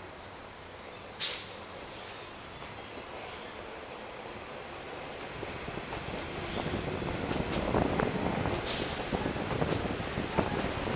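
City street traffic with an articulated bus alongside: a short, sharp hiss about a second in and another near nine seconds, over a rumble that grows louder from about six seconds in.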